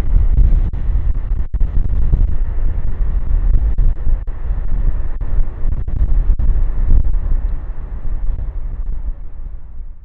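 Strong gusty wind buffeting the microphone, a heavy low rumble, over the rush of the Boeing E-3A's four TF33 turbofan engines as the aircraft slows on the runway after landing. The sound fades out over the last couple of seconds.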